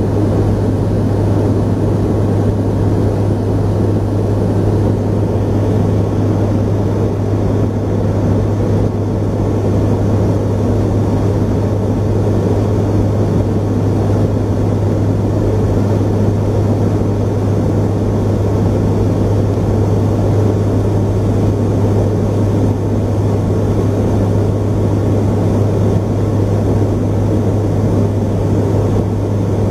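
V-22 Osprey tiltrotor's turboshaft engines and proprotors running, a steady loud drone with a strong constant low hum that does not change.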